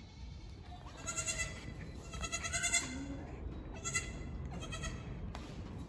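Newborn Pygmy–Nigerian Dwarf cross goat kid bleating, about four short, high-pitched bleats.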